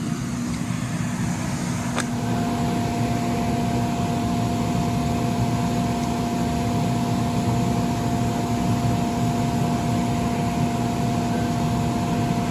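Electric inflator blower of a bounce house running with a steady drone and hum; about two seconds in there is a click, and a higher steady tone joins the hum.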